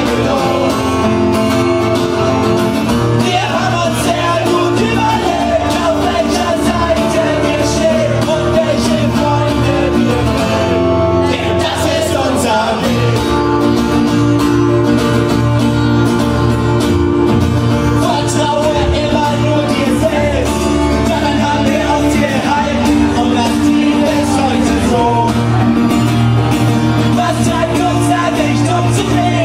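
Punk rock band playing live: loud electric guitar and singing, steady throughout.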